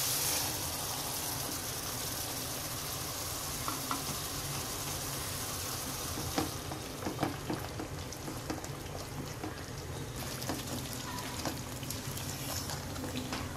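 Spiced oil and masala sizzling in a pan as a thick ground paste is tipped in and stirred with a spatula. The sizzle eases a little about halfway through, with a few light scrapes and taps of the spatula.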